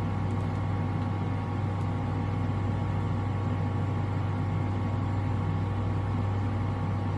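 A steady low hum, unchanging throughout, with the faint gnawing of a small dog chewing a bone beneath it.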